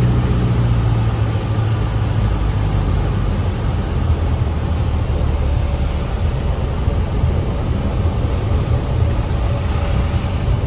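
Airplane engine running steadily: a low drone under a broad rushing noise.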